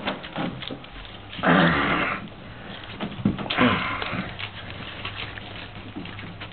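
Flat-coated Retriever puppies moving about together in a whelping box, with many small taps of paws and claws and two louder noisy bursts of sound from the puppies, about one and a half and three and a half seconds in.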